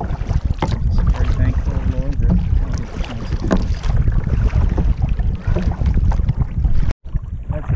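Wind buffeting the microphone of a kayak-mounted camera as the kayak moves across open water: a steady, uneven low rumble with scattered crackles. It drops out for an instant about seven seconds in and comes back.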